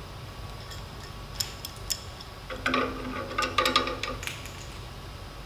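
A 90-degree pipe elbow being threaded by hand into the bottom of the lubricator's mounting bracket: light metallic clicks and ticks of the fitting against the bracket, a few at first, then a busier cluster in the middle, over a steady room hum.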